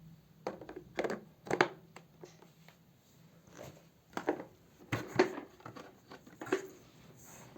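Handling noise from a vacuum cleaner being worked on by hand: a series of irregular clicks and knocks with brief rustling between them, the motor off.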